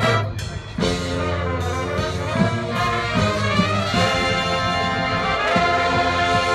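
High school marching band playing: the brass section holds loud sustained chords, with a couple of rising runs and a few drum hits underneath.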